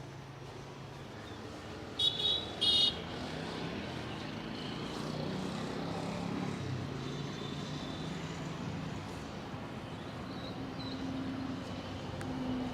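Roadside traffic: a steady hum of passing motor vehicles, with a vehicle horn sounding in two short toots about two seconds in.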